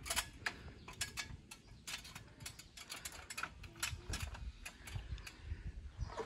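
A fast, irregular run of sharp metallic clicks and snips as the overhanging sheet-metal edge of the new roof panels is trimmed off.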